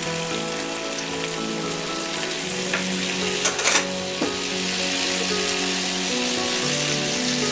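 Floured chicken breasts and butter frying in a stainless steel pan, a steady sizzle. About three and a half seconds in, lemon juice is poured into the hot fat and the sizzle flares up briefly, louder.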